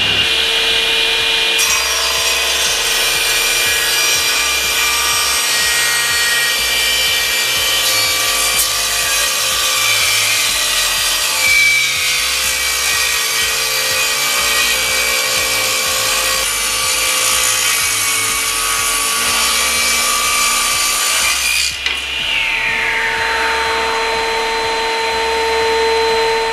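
SIP 01332 10-inch cast iron table saw with a 2200 W motor, running, then rip-cutting a thick iroko hardwood board from about a second and a half in, a steady dense cutting noise for about twenty seconds. The cut ends about three-quarters of the way through, and the blade spins on freely.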